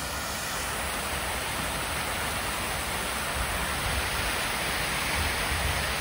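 Garden fountain jets and a stepped cascade of low waterfalls splashing into a pool: a steady, dense rush of falling water, growing slightly louder in the second half.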